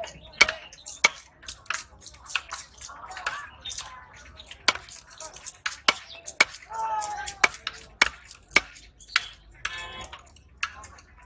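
Heavy knife chopping through a rohu fish fillet onto a wooden log chopping block: sharp, unevenly spaced chops about once a second. Music comes in near the end.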